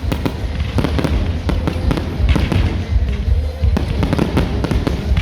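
Fireworks display going off continuously: dense rapid popping and crackling over a steady low rumble of booms.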